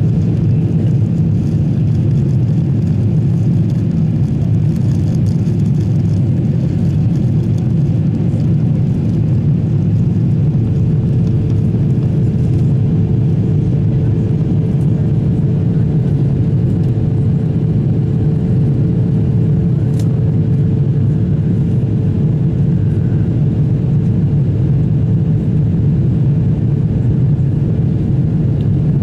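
Steady low rumble of jet engines and rushing air heard inside an airliner cabin, climbing shortly after take-off. A steady hum grows stronger about ten seconds in, and there is a single short click about two-thirds of the way through.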